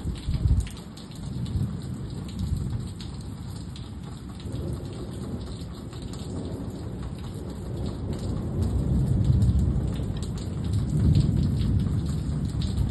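Rain falling steadily, with scattered drops ticking close by and a low rumble that swells about eight seconds in and again near the end.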